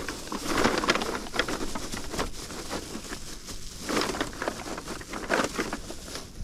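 Plastic bag full of crushed aluminum cans being handled and moved, the plastic rustling in irregular bursts with small clicks from the cans shifting inside.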